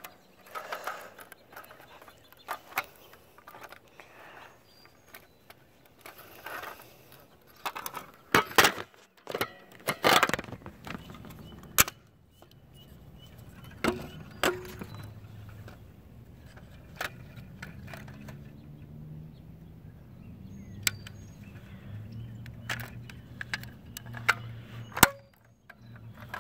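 Fire alarm pull station being handled and pulled: a scatter of sharp clicks and clacks, the loudest about eight and ten seconds in and again near the end.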